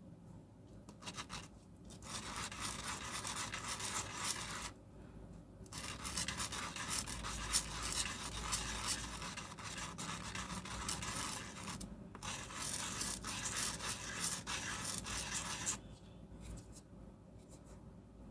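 A plastic fountain pen part rubbed on 220-grit emery sheet laid flat on glass, a gritty sanding scrape in three long stretches with short pauses between, grinding the cracked, tapered end face flat.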